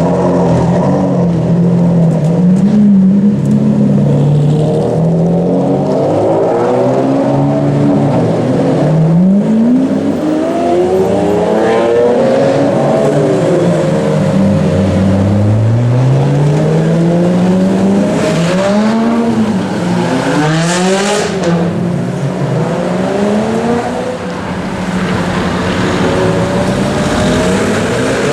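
Supercars, among them a Ferrari Enzo, a Lamborghini Aventador and Lamborghini Gallardos, driving past loud and revving hard. Their engines rise sharply in pitch again and again through the gears, then drop back, with one car after another accelerating away.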